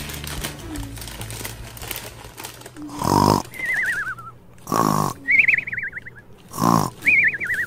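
Cartoon snoring sound effect: three loud nasal snores about two seconds apart, starting about three seconds in, each followed by a warbling whistle that slides downward. Soft background music runs quietly before the first snore.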